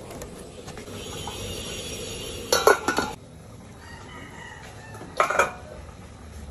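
Metal cooking pot, lid and ladle clattering, with short loud clanks about two and a half seconds in and again about five seconds in. A rooster crows in the background.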